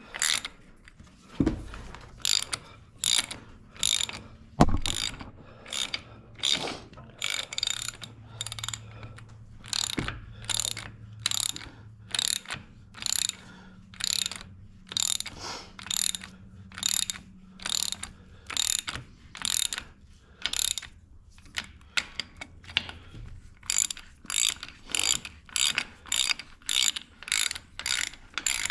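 Hand ratchet wrench being worked in short strokes, a burst of pawl clicks on each backstroke at about one and a half strokes a second. A few dull knocks come in between.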